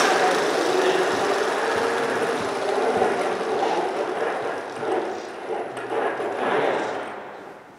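A FIRST Robotics Competition robot's electric motors whirring as it drives. The whir is loudest at the start and dies away over the last couple of seconds.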